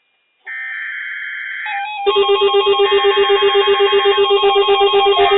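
Weather-radio alert tones: a short burst of high, buzzing data tones, then, about two seconds in, a loud electronic alarm that pulses rapidly. Together they announce an incoming weather alert.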